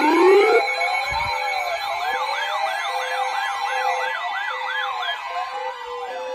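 Several sirens sounding at once: overlapping slow wails and fast yelps, rising and falling in pitch, fading slowly.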